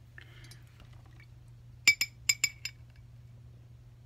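Paintbrush tapped against a glass water jar: about five quick, ringing clinks in under a second, near the middle.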